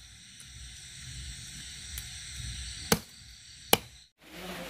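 Two sharp chops of a large knife cutting frog meat down onto a wooden stump chopping block, just under a second apart, past the middle.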